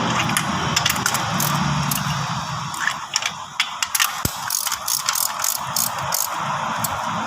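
Rapid mechanical clicking and rattling of a hand tool, like a ratchet wrench, during work on the car.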